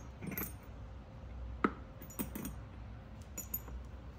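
Small metal leather-tooling tools clinking and tapping against a hard work surface as they are handled, a few scattered light clicks, the sharpest about a second and a half in.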